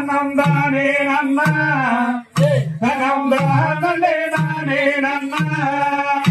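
A male voice singing a valli kummi folk song in a chanting melody, with sharp taps here and there. The singing breaks off briefly a little over two seconds in, then goes on.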